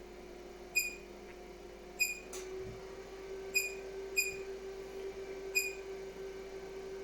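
Five short, high electronic beeps at irregular intervals over a steady hum, with a single click about two and a half seconds in.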